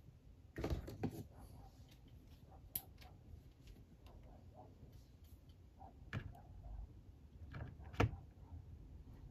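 Light handling noises of plastic Power Rangers Lightning Collection action figures: a few scattered clicks and taps as figures are moved on a display stand. The sharpest tap comes near the end, as a figure is set down.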